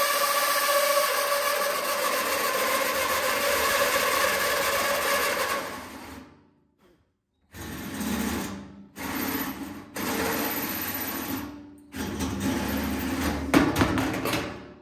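Electric drill turning a 2 1/8-inch hole saw through the top of a metal fuel tank. A steady whine with ringing tones runs for about six seconds and stops, then comes back as four shorter stop-start bursts of cutting.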